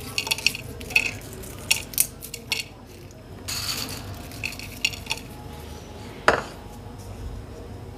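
Crispy fried papdi wafers crackling and clicking as a hand scoops them from a bowl and drops them onto potato tikkis on a plate, in short irregular handfuls. A single sharper knock comes a little after six seconds.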